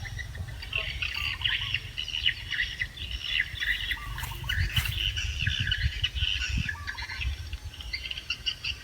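Many small birds chirping and calling continuously, with a steady low rumble on the microphone and a few soft knocks about halfway through.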